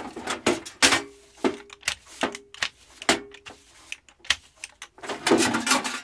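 Household cleaning clatter from a broom, dustpan and metal bin being handled: a string of sharp knocks and taps, a few with a short ringing tone. About five seconds in it gives way to a denser rushing scrape.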